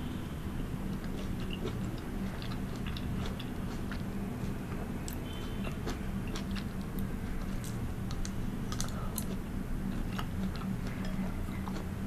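Close-up wet chewing of spoonfuls of mango and blueberries in liquid, with scattered sharp clicks, over a steady low hum.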